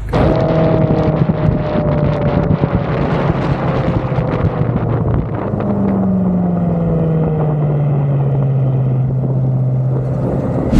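Car engine running while driving, its pitch slowly falling, with wind and road noise over it.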